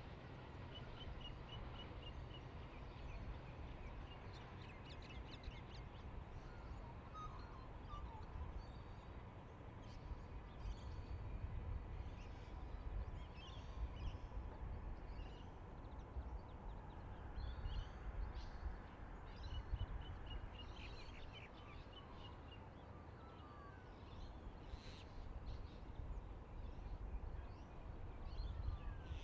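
Small birds chirping and trilling on and off, with short runs of rapid repeated notes, over a steady low rumble.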